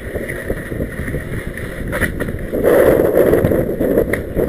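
Skis scraping and sliding through wet spring slush, with wind rumbling on the camera microphone; the scrape grows louder and fuller for a second or two in the second half.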